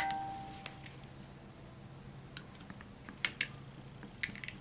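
Small metal clicks and taps from a screwdriver working the screws that hold the motor on a vintage Tri-ang model locomotive's metal chassis: a handful of sharp ticks spread over the seconds, with a short metallic ring at the start.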